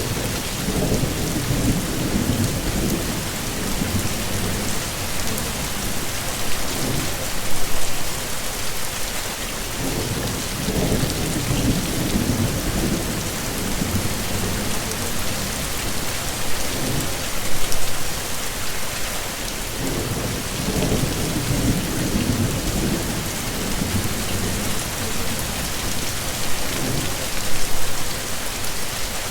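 Heavy rain falling in a steady hiss, with low rolls of thunder rumbling up about every ten seconds.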